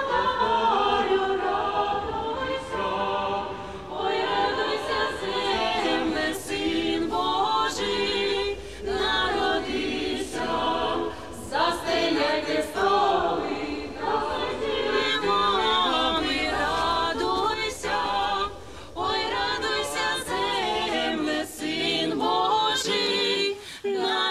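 A group of voices singing a Christmas carol in chorus, unaccompanied.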